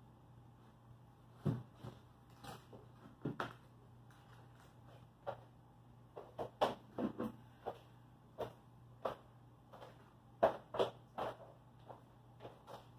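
Irregular light knocks and clicks of a plywood bulkhead being handled and fitted against the skiff's plywood bottom panels, with a steady low hum underneath.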